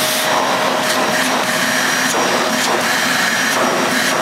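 AEG Nimble bagless upright vacuum cleaner running steadily, a rush of air with a steady whine, drawing through its hose now that the handle is released and the diverter sends suction to the hose. There are a few brief surges in the air noise; the hose suction is there but not great.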